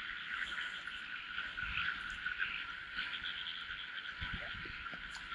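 Dense chorus of frogs calling steadily, with a few soft low thuds.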